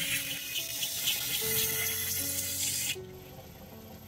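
Steel knife blade held flat against the running abrasive belt of a belt grinder, grinding the blade's surface: a loud, even hiss for about three seconds that cuts off suddenly as the blade comes off the belt. Soft piano music plays underneath.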